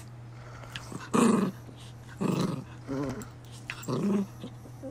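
Miniature poodle growling in rough play while wrestling with a hand: four short growls about a second apart.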